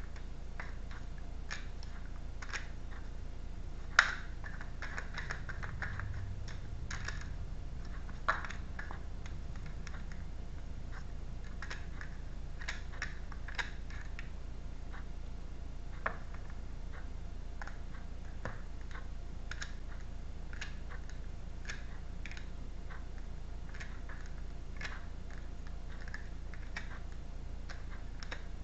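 Tarot cards being handled: shuffled, flicked and laid down on a table, giving scattered light clicks and taps, the sharpest about 4 seconds in, over a steady low hum.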